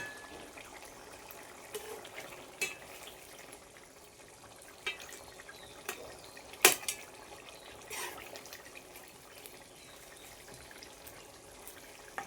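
Jackfruit curry gravy simmering in a pan, a soft bubbling and popping, with a few short sharp clicks.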